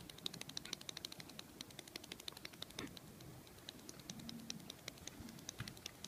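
Faint, quick, irregular light ticks of a gull's feet pattering on asphalt as it foot-paddles, treading rapidly on the spot the way gulls do to stir up worms.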